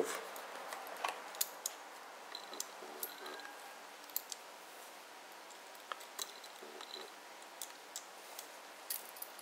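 Faint, scattered small clicks and ticks of a thin precision screwdriver turning out a tiny screw in an iPod classic's metal frame.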